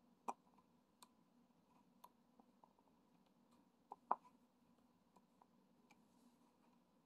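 Faint, scattered clicks and taps as a diamond painting pen dabs resin drills onto the adhesive canvas, the loudest a sharp double tap about four seconds in.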